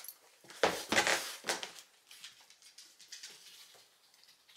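A small Shiba Inu moving off across the floor: a few scuffs and thumps about a second in, then faint light taps.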